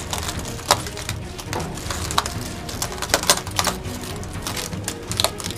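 Bare feet treading on a heap of broken glass and bottle shards, the glass crunching and clinking in irregular sharp clicks.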